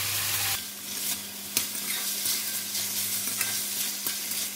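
Chicken and vegetables sizzling in oil in a stainless-steel wok while a slotted metal spatula stirs and scrapes them, with a few sharp clicks of metal on the pan over a faint low hum.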